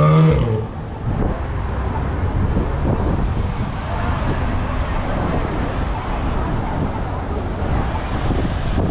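Steady rumbling road and wind noise, as from a moving car, with wind buffeting the microphone. A pitched, voice-like sound fades out about half a second in.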